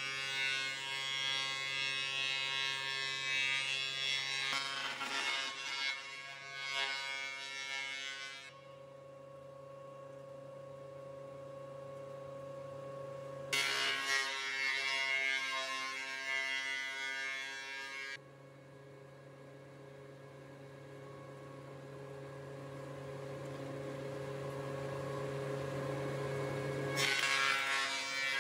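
Industrial thickness planer running with a steady motor hum. Three louder stretches of cutting noise come as boards are fed through: one at the start, one in the middle and one near the end, each breaking off or starting suddenly.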